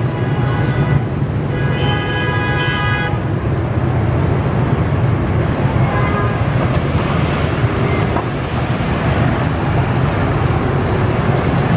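Heavy motorcycle traffic running steadily past, with a horn tooting twice in the first few seconds (a short toot, then a longer one of about a second and a half) and a fainter toot around the middle.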